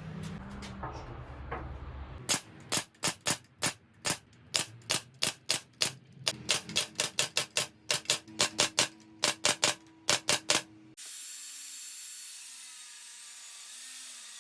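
A rapid, uneven run of about thirty sharp clicks from a workshop tool, three or four a second, for about eight seconds. Then a steady hiss with faint wavering tones starts abruptly.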